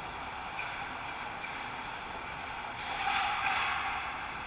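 Steady ice-rink background noise during play, a hissy wash with no voices, swelling briefly and getting brighter about three seconds in.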